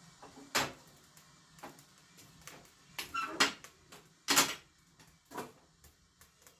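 Metal clanks and knocks at a wood-fired kitchen range as its firebox is tended: about five separate knocks, one around three seconds in with a short metallic ring, the loudest about four and a half seconds in.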